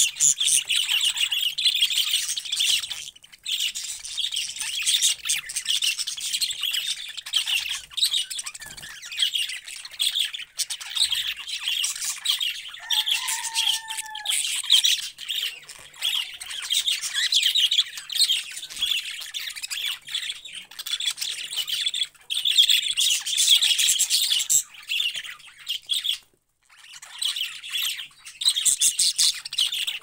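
A group of budgerigars chattering steadily: a dense, high-pitched mix of chirps, warbles and squawks.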